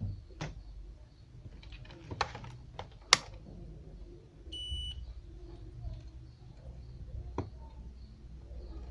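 Scattered clicks and taps of handling around a receiver's circuit board, with one short electronic beep about four and a half seconds in from a digital multimeter being set up to test the signal transistors for a short.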